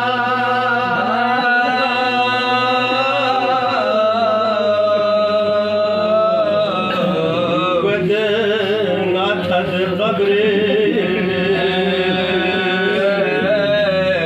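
A man chanting a Balti marsia, a Muharram lament, in long held, wavering notes.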